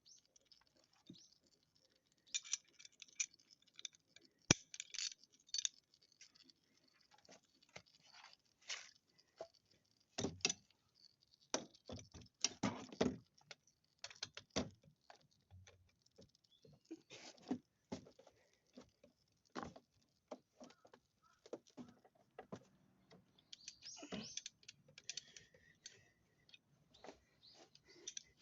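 Irregular clinks, taps and rattles of hand tools and small metal parts being handled, scattered through with short pauses.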